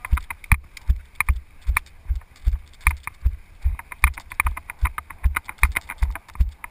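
Running footsteps on grass, picked up through a body-worn camera that jolts with each stride. The thuds come at a steady pace of about two and a half a second.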